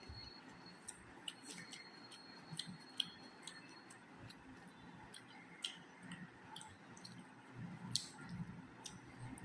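Close-miked eating sounds: wet mouth clicks and smacks while chewing rice and curry, as irregular sharp ticks with the loudest about three and eight seconds in.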